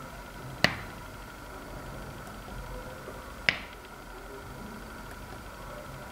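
Two sharp finger snaps, about three seconds apart, setting off a sound-activated SCR clap switch.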